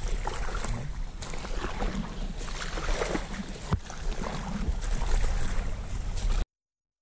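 Wind rumbling on the microphone over the noise of a kayak on the water, with a few sharp knocks. The sound cuts off suddenly about six and a half seconds in.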